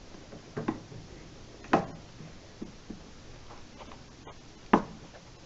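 Scattered light clicks and knocks of a wrench turning a newly fitted water heater pressure relief valve round to face down, the loudest about two seconds in and just under five seconds in.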